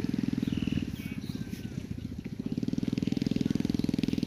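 Rebuilt motorcycle's 110cc engine running with a rapid, even exhaust beat as it is ridden, easing off about a second in and picking up again around three seconds.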